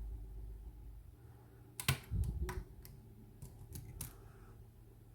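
Lock pick and tension wrench working the pins of a Scandinavian oval cylinder lock: a run of small, sharp clicks about two to four seconds in, with faint handling rumble.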